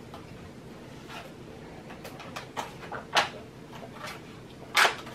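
A person spitting saliva into a small plastic DNA sample tube: a few short hissy spits, with the loudest one near the end.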